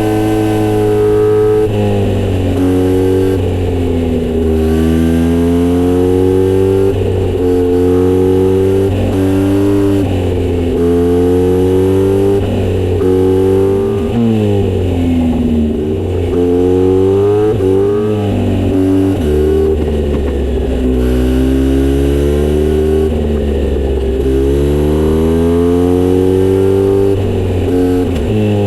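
Kawasaki Z900RS inline-four running through a Misty Kintaro short-pipe muffler with a 70 mm silencer, ridden hard. The engine note rises through the gears and drops at each shift, falls as the rider backs off, then pulls up again, over and over.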